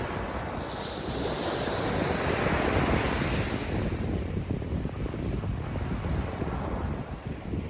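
Ocean waves washing onto the shore: one wave swells to its loudest about two to three seconds in and then ebbs away, over a steady low rumble of wind on the microphone.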